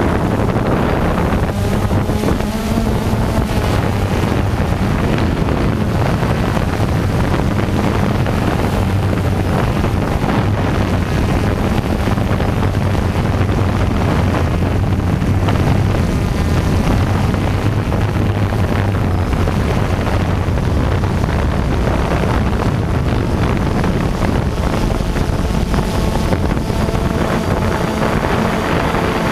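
Steady hum of a small camera drone's motors and propellers heard from the aircraft itself, with wind buffeting the microphone. Near the end the motor note shifts and a higher whine joins in.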